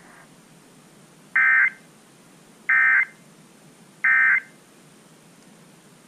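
Three short, identical electronic data bursts, about a second and a half apart, coming through a small portable radio's speaker. They are the Emergency Alert System end-of-message code, sent three times to signal that the alert broadcast is over.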